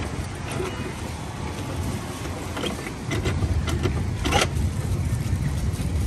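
Street traffic rumbling steadily, growing louder about three seconds in, with a few short clicks and a knock near the middle, the sharpest just after four seconds.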